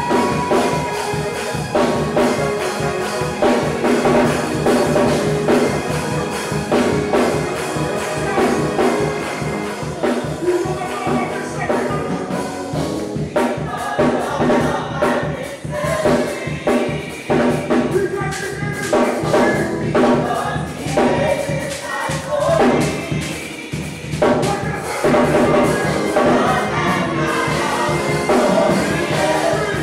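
Live gospel worship music: a lead singer and a group of backing vocalists singing together over a steady beat.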